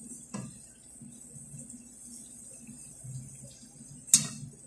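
Bitso dough twists deep-frying in a pan of oil with a steady, soft sizzle. A light knock comes about a third of a second in, and near the end a sharp metal clack as a perforated skimmer strikes the pan.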